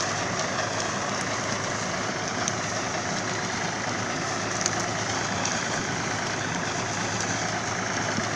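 Tractor engine running steadily as it drives a PTO-powered reaper-binder through tall reeds, with a few faint sharp clicks from the cutting.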